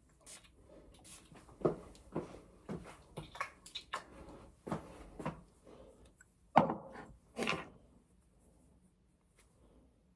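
Irregular knocks, clicks and light clatter of household objects being handled, with two sharper knocks about six and a half and seven and a half seconds in, then quiet.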